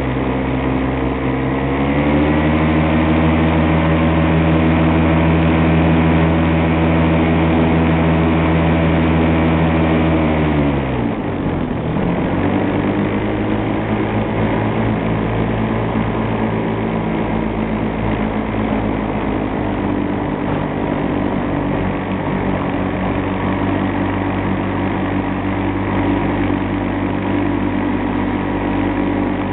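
Miniplane paramotor's Top 80 two-stroke engine and propeller running. The revs rise about two seconds in and hold high, then drop sharply about eleven seconds in and settle at a steady lower speed.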